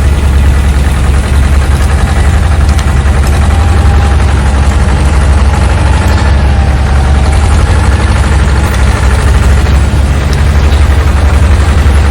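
Heavy diesel engine running steadily with a deep, fast throb, from the logging truck or the bulldozer holding it on the slope.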